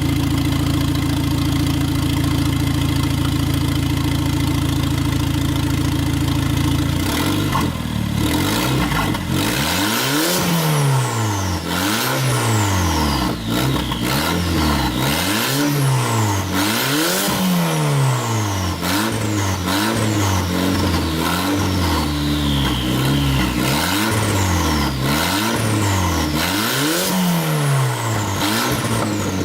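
Audi A4 2.0T turbocharged four-cylinder engine idling, then from about seven seconds in revved in repeated quick blips, roughly one every second and a half, each followed by a high whistle falling away.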